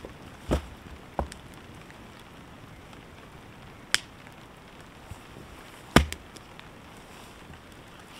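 Wooden branches being snapped by hand for firewood: four sharp cracks, the loudest about six seconds in.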